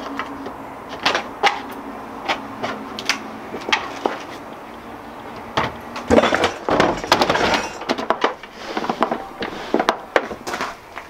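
Plywood camp kitchen box being handled and closed up: a run of irregular wooden knocks, clunks and clicks, busiest about six to eight seconds in.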